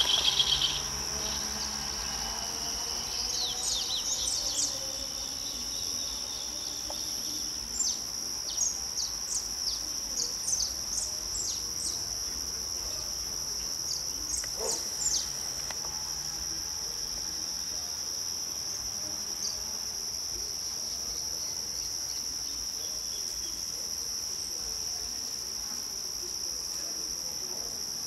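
Steady high-pitched drone of insects, with short bird chirps scattered through the first half.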